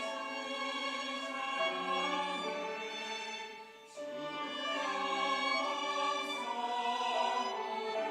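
Church choir singing a sacred anthem with instrumental accompaniment, in slow sustained chords. A brief pause a little before halfway divides two phrases.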